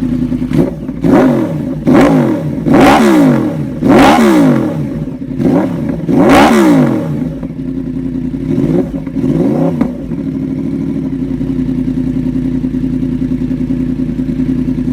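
Yamaha R1 sport bike's inline-four engine through a loud aftermarket exhaust, idling and then revved sharply about five times in quick succession, each rev rising and falling fast, with two smaller blips before it settles back to a steady idle.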